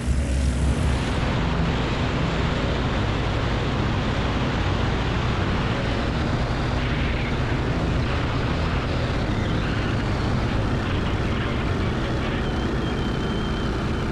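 Light single-engine airplane's engine and propeller running steadily in flight, heard with heavy wind rush past the open cabin.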